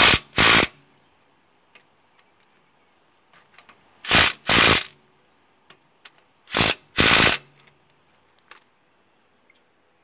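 Cordless impact driver with a socket hammering lug nuts tight on a car wheel, in three pairs of short bursts, each under half a second, a few seconds apart.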